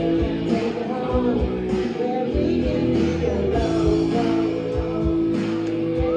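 Live rock band playing: a woman singing lead over electric guitar, bass guitar and a drum kit, with a long held note from a little past halfway.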